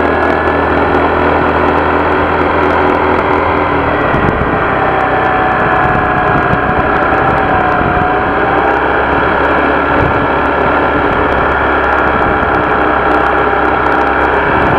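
Honda PCX scooter's engine running steadily, with a thin high tone over the engine note, which shifts about four seconds in. The owner has a buzzing vibration problem that he tags as variator-related.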